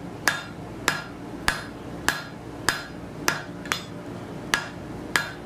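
Hand hammer striking a red-hot high-carbon steel bar on an anvil in a steady rhythm of about nine blows, roughly one every 0.6 s, each with a short metallic ring of the anvil. This is the sound of drawing out a taper by hand forging.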